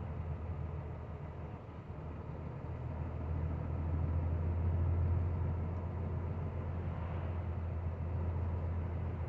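Truck engine droning steadily with road noise while driving on the highway. The drone grows louder about three seconds in and settles again after about five seconds.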